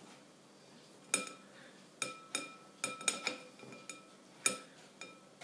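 A metal spoon pressing hard-boiled egg yolks through a sieve set on a glass bowl, clinking against the sieve and bowl: about eight sharp clinks, each with a short ringing tone.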